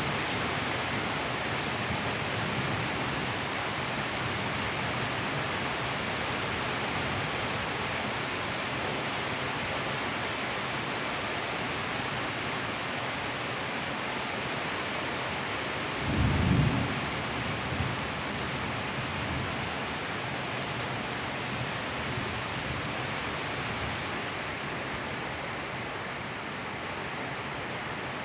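Steady rain. A brief low rumble rises and fades about sixteen seconds in, with a fainter one a second or so later.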